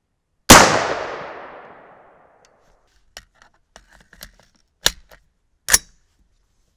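A single shot from an unsuppressed .223 AR-15 rifle, its report echoing and dying away over about a second and a half. A few small clicks follow, then two sharper clacks.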